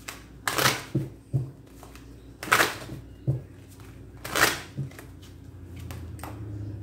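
Tarot cards being handled on a table: three short papery swishes with a few soft knocks between them. A low rumble builds near the end.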